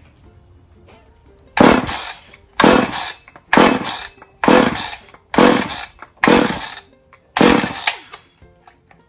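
Skilsaw 1616 two-stroke chainsaw being pull-started with the choke on. The recoil starter is pulled eight times, about once a second, and each pull cranks the engine with a sharp start that fades away without the engine firing. The saw will not start, which the owner puts down to a bad gas tank gasket that let the oil mix in.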